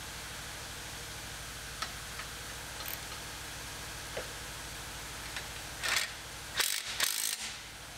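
Faint metallic clicks from a bolt and nut being fitted on an exhaust pipe flange, then from about six seconds in short bursts of a hand ratchet running the nut down, over a steady low shop hum.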